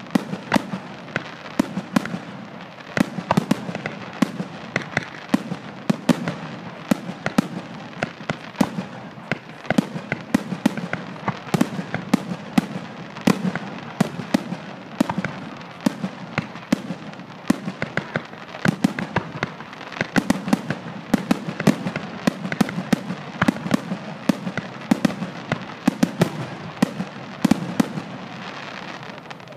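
Aerial fireworks bursting in quick succession: a dense run of sharp bangs and crackles, several a second, over a steady hiss.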